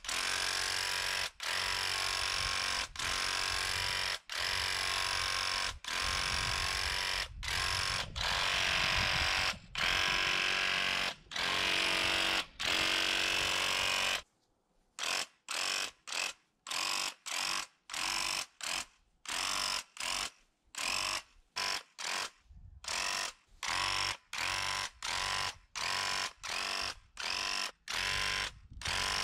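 Handheld electric paint sprayer running in trigger-pulled bursts while spraying paint. For about half the time the bursts are long, about a second and a half each with brief breaks, then they turn into short quick bursts, roughly two a second, with silence between.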